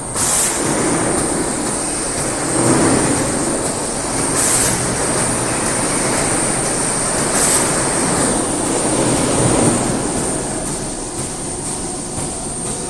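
CNC polishing machine running, with a steady high whine over a rushing noise that swells and eases every few seconds. Three short hissing bursts come near the start, about four and a half seconds in and about seven and a half seconds in.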